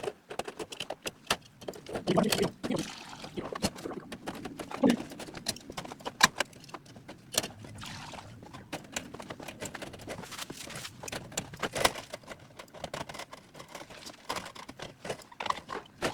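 Irregular clicks, knocks and light rattles from handling rabbit cages, their water bowls and hay feeders.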